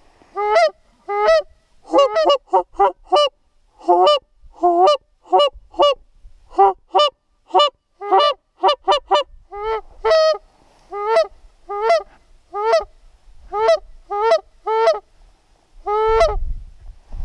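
Goose honking: a long, irregular series of about thirty short, loud honks, some coming in quick runs of two or three, with a slightly longer honk near the end.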